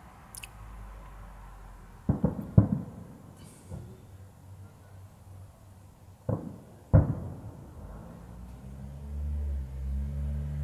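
Fireworks shells bursting a few kilometres away: two pairs of sharp bangs, each pair about half a second apart and the pairs about four seconds apart, with a fainter one between them, each trailing off in a short echo. A low rumble builds near the end.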